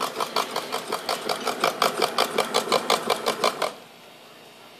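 Model paddle-wheel boat's small electric motor and drive turning its can-and-popsicle-stick paddle wheels, a rapid, even clacking of about six clicks a second that stops suddenly about three-quarters of the way through. It is the chuffing sound the owner likens to a steam engine.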